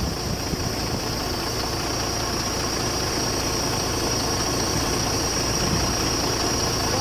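Crane truck engine running steadily while it holds a transformer on its hoist chain, with a thin steady high whine on top.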